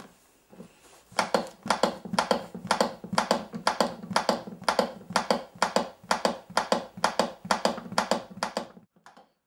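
Chest compressions on a CPR training manikin: a steady, quick rhythm of clicks, one with each push. It starts about a second in and stops just before the end.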